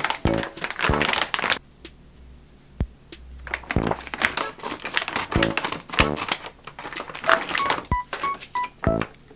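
Plastic food packaging crinkling and rustling as groceries are lifted out and handled, over light background music with short plucked notes.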